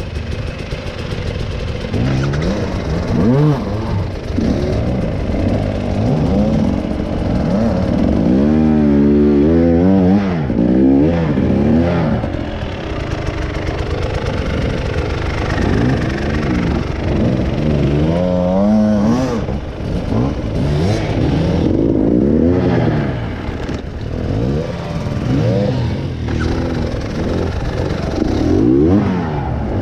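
Off-road motorcycle engine being ridden on a trail, revving up and falling back again and again as the throttle is worked, with some clatter.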